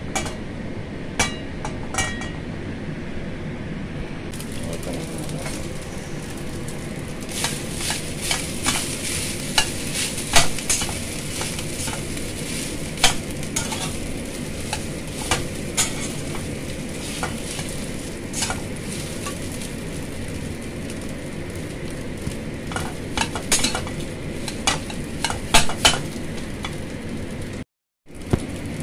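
Rice frying in hot oil in a wok, sizzling, while a slotted metal spatula scrapes and taps against the pan in a run of sharp clicks as the rice is stirred and broken up. The sound drops out completely for a moment near the end.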